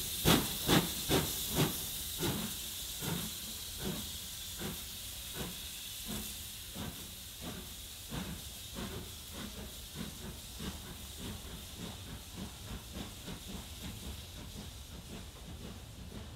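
Two steam locomotives, a BR Britannia 4-6-2 and an LMS Black Five 4-6-0, pulling away with a train. Their chuffing exhaust beats are loudest at first and fade as the engines draw away, over a steady hiss of escaping steam.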